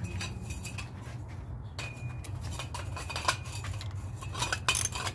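A socket wrench clicking and clinking on a connecting rod cap nut of a MerCruiser 3.0 L engine: irregular runs of sharp metal clicks, loudest about four and a half seconds in.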